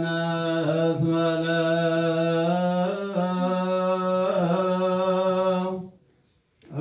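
Ethiopian Orthodox liturgical chant by male voices, held on long, nearly level notes with small turns in pitch. It breaks off about six seconds in, leaving a short pause before it starts again.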